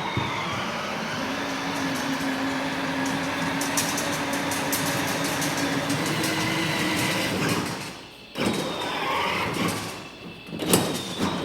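Battery-powered Power Wheels ride-on toy driving, its electric motor and gearbox whirring steadily with plastic wheels rolling on the floor. It stops briefly about eight seconds in, then starts up again.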